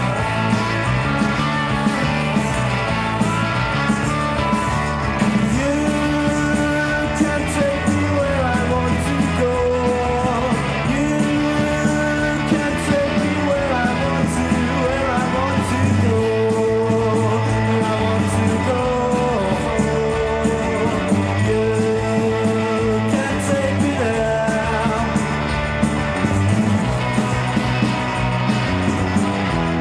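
A band's rock song from a demo recording, with guitar and singing; the melody holds long notes that slide from one pitch to the next.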